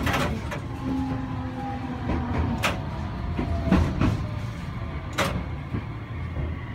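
Tokyu Setagaya Line tram heard from inside the car, running with a steady low rumble and a faint motor whine that slowly falls in pitch as it slows. Several sharp knocks of wheels striking rail joints come at irregular intervals.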